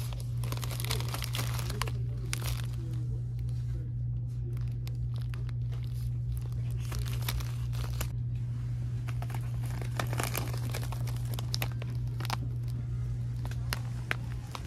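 Grocery packaging crinkling and rustling as items are handled, in many short irregular crackles, over a steady low hum.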